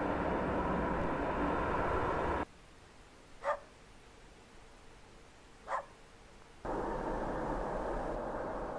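Jet engine noise of an Airbus A310 freighter on its takeoff roll, cut off suddenly. Then a quiet stretch with two short dog barks about two seconds apart. Loud jet noise from another airliner on the runway comes in suddenly near the end.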